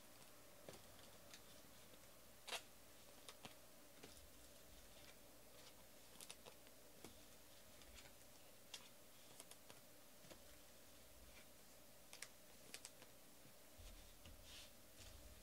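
Near silence: a faint steady room hum with scattered light clicks and taps, irregular and a second or so apart.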